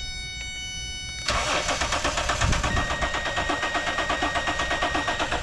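2007 Dodge Dakota's engine cranking on the starter, an even rhythmic churning that starts about a second in and cuts off suddenly, without firing: a no-start with no power reaching the ignition coils.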